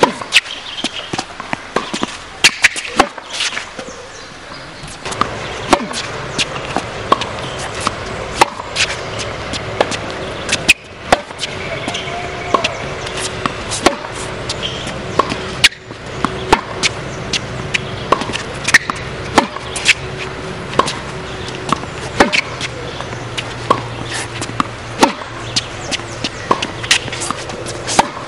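Tennis balls struck by rackets and bouncing on a hard court during a rally: a long string of sharp pops and knocks at irregular intervals, a few of them much louder than the rest.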